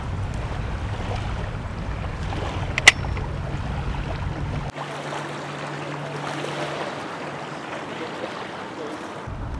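Wind buffeting the microphone with surf behind it, and one sharp metal click about three seconds in as the T-handle and its locking pin are fitted. About halfway the low wind rumble drops away, leaving a steady hiss of wind and waves.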